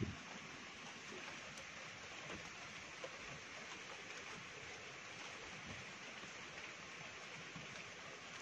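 Faint, steady hiss of background noise, with one short low thump right at the start.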